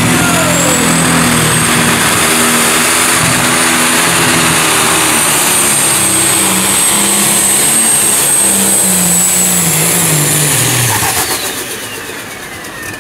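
Turbocharged diesel engine of a John Deere pro stock pulling tractor running flat out under load while it drags the weight sled, with a high turbo whine that climbs in the first second and then holds. About eleven seconds in the throttle comes off: the engine drops in pitch and the turbo whine winds down.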